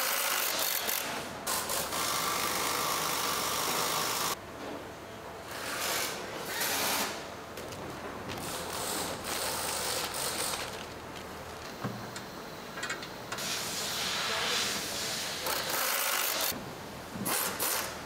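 Factory workshop noise: bursts of hissing and rubbing, mechanical in character, of uneven length, starting and stopping abruptly several times.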